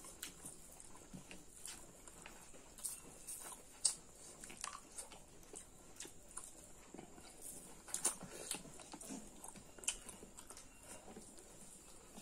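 Close-up chewing and wet mouth smacks of people eating rice and pork curry by hand, made of scattered short clicks. The sharpest smacks come about four seconds in and again about eight seconds in.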